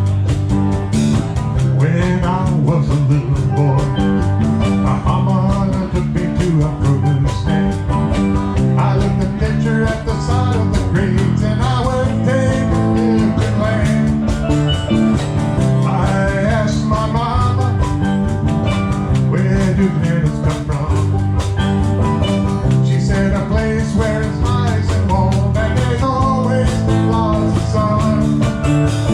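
A live band playing an upbeat song: guitar, bass guitar, drum kit and steel drums.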